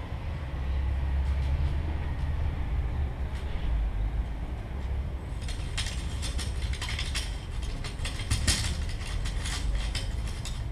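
Amplified dry plant material, picked up by contact microphone and played through a loudspeaker. A low rumble of handling comes first. About halfway in, a dense run of crackling, scratching clicks starts as the dry leaves are rubbed and scraped.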